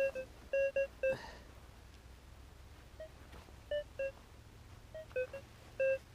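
AKA Berkut 5 metal detector giving a dozen or so short, irregular beeps of slightly varying pitch as dug-up soil is passed over its search coil. The beeps signal a metal target in the soil.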